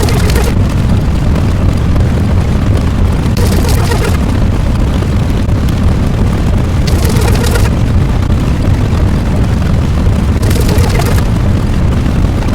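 Loud, unbroken rumbling noise heavy in the bass, like a looped explosion effect, with a brighter hissing burst about every three and a half seconds.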